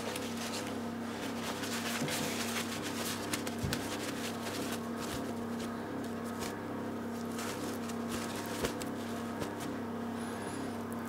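Sheet of kitchen paper towel rustling and crinkling as it is handled and scrunched, in an uneven run of soft crackles, then dabbed against raw cod loin near the end. A steady low hum runs underneath.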